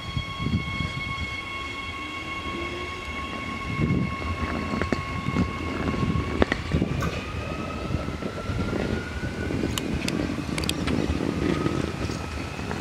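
Adelaide Metro 4000-series electric train pulling away. Its drive whines steadily and then rises in pitch from about halfway through as it gathers speed, over a low rumble of wheels on the track, with a few sharp clicks.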